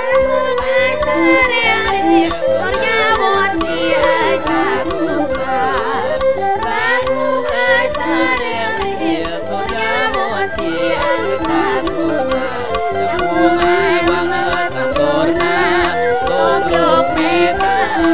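Live Khmer traditional ensemble music: a bowed two-string tro fiddle plays a wavering, sliding melody over a steady hand-drum beat.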